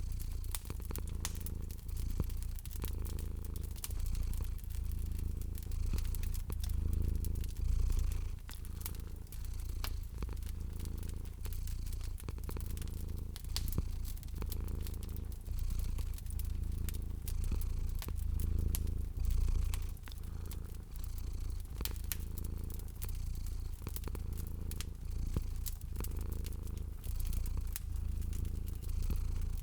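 Domestic cat purring, a low rumble that swells and fades with each breath about every two seconds, over a wood fire crackling with scattered sharp pops.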